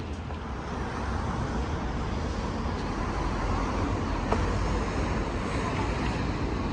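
City street traffic noise: a steady low rumble of passing road vehicles, with a single short click about four seconds in.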